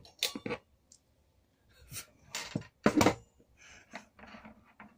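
Small handling sounds of a female solar cable connector being worked in the hands: scattered plastic clicks and light knocks, then soft rustling. One louder short sound comes about three seconds in.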